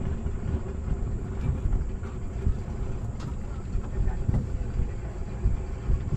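Boat motor running steadily while slow-trolling, a low rumble with a steady hum, with wind buffeting the microphone.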